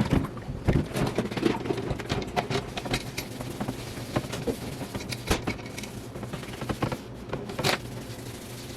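Irregular light clicks and knocks, the loudest near the start and again near the end, over a steady low hum.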